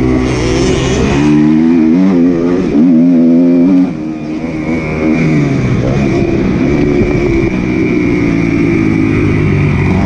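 Several motocross motorcycle engines running at once, their pitch rising and falling repeatedly as the throttles open and close.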